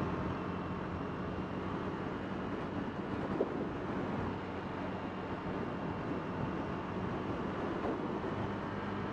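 KTM Duke 390 motorcycle's single-cylinder engine running steadily while riding, mixed with wind and road noise.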